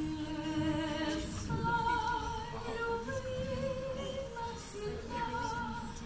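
Music with a high voice singing long held notes with a wavy vibrato, moving from note to note about once a second.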